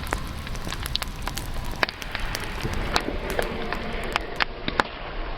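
Wood campfire crackling: irregular sharp pops and snaps over a steady hiss of burning.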